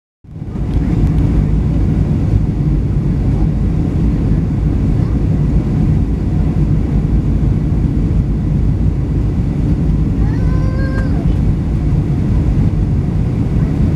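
Cabin noise of a Boeing 737-700 on approach: a steady, loud, low roar of engines and airflow, heard inside the cabin, starting abruptly just after the start.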